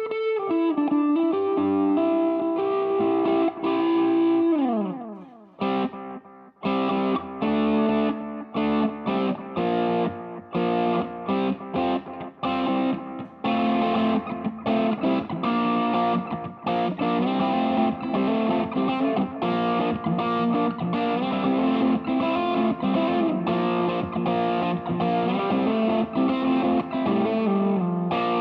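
Electric guitar played through a Mooer Green Mile overdrive pedal, a Tube Screamer clone, in its Hot mode. It holds notes at first, slides down in pitch about five seconds in, goes briefly quiet, then plays choppy overdriven chords and riffs with short stops.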